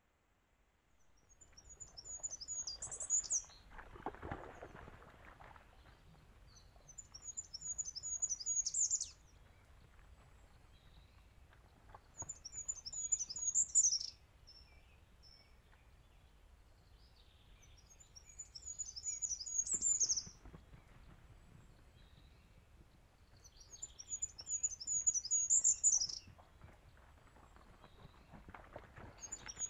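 A songbird singing the same short phrase over and over, about every five to six seconds. Each phrase is a quick run of high notes lasting a couple of seconds and ending in a higher flourish.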